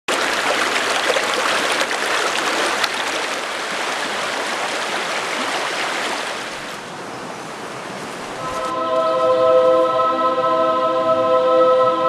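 Shallow rocky mountain stream running, a steady rush of water over stones. It fades out about eight seconds in as a sustained choir chord of held notes begins.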